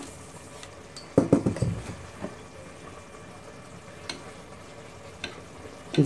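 Hand-sifting flour with a mesh sieve over a stainless steel bowl: a short cluster of knocks and scrapes of the sieve and bowls about a second in, then a few faint taps.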